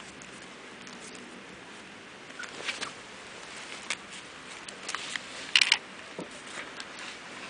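Scattered soft rustles and scratches of border collie puppies' paws shuffling over a fabric blanket and paving, the loudest a brief crackly rustle about five and a half seconds in, over a steady faint hiss.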